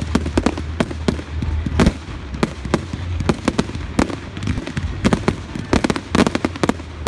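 Aerial fireworks display: shells and rising comets bursting in a rapid, irregular string of bangs and pops, several a second, over a steady low rumble.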